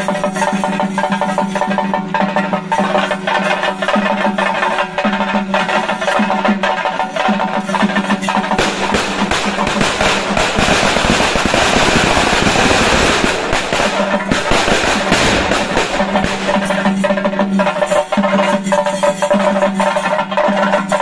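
Theyyam ritual percussion: chenda drums beaten in a fast, continuous roll under a sustained piped note. About halfway through, the drumming thickens into a dense, louder roll for several seconds that covers the piping. The piping then comes back through.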